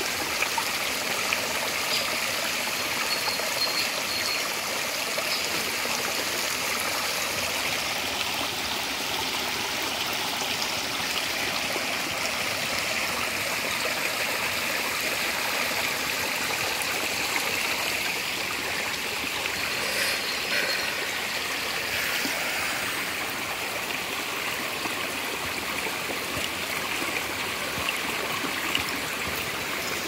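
Small woodland stream flowing over stones and fallen branches: a steady, even trickling rush of water.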